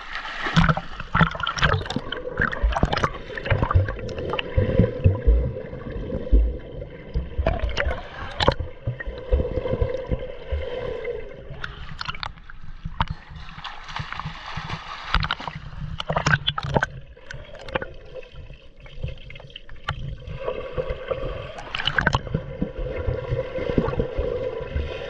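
Pool water splashing and gurgling around a phone sealed in a waterproof pouch, heard muffled, with uneven knocks and sloshes throughout.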